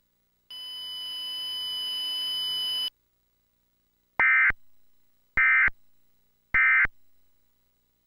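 Emergency Alert System End of Message tones from a Trilithic EASyPLUS encoder: three identical short, shrill digital data bursts about a second apart, signalling the end of the alert. Before them, a steady hiss with a faint high tone runs for about two and a half seconds.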